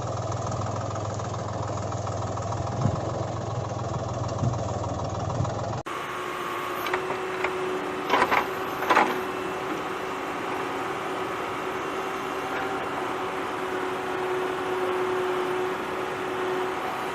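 Steady engine running sound of a tractor, low and even. About six seconds in it cuts to a lighter hum with a steady tone, with a few sharp clicks a couple of seconds later.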